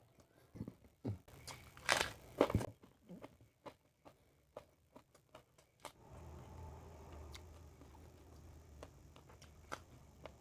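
Close-up eating sounds: crunching, tearing and wet chewing of food, with the loudest crunches about two seconds in, then steadier closed-mouth chewing with occasional clicks.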